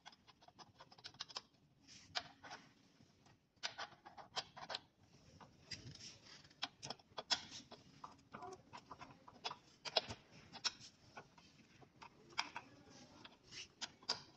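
Scattered light clicks and taps of hand work on an e-bike's rear frame: a T-handle hex key worked on a bolt, then plastic cable connectors being handled. The clicks come irregularly, some in quick clusters.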